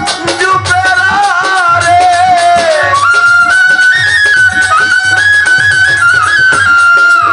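Live folk band playing an instrumental interlude. A high, stepping melody line runs over a steady drum beat and shaker. A violin is among the instruments being played.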